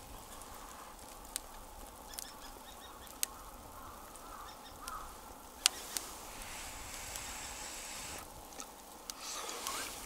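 A few sharp clicks of chopsticks tapping a metal pot of simmering hot pot over a charcoal grill, over a quiet outdoor background with a few faint distant calls.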